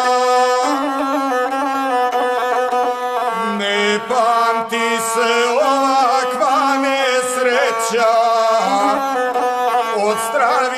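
Gusle, the single-string bowed folk fiddle, playing an instrumental interlude between sung verses of an epic song: a continuous melody whose held notes carry quick wavering ornaments.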